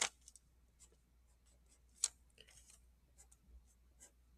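A marker being picked up and handled: a sharp click at the start and another about two seconds in, then faint scratching of the marker tip on paper as writing begins.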